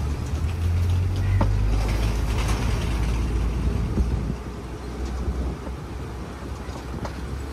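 Safari tour truck driving along a rough track: a steady low engine rumble with scattered knocks and rattles from the vehicle. It gets quieter about four seconds in.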